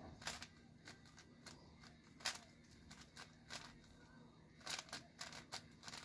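Faint, irregular clicking of a 5x5 speed cube's layers being turned fast, in short clusters of clicks, while the edges are being paired.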